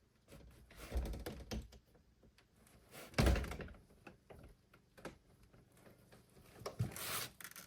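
Thuds and knocks from a wooden door and its latch being handled and shut, with a cluster of knocks near the start, one heavy thud about three seconds in and more knocks near the end.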